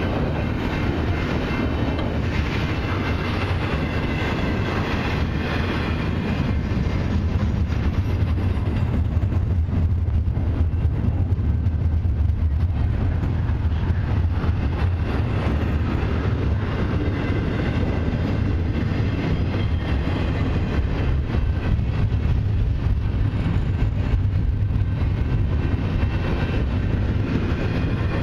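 Double-stack container well cars of a freight train rolling past: a steady low rumble of steel wheels on the rails with frequent clicks as the wheels cross rail joints.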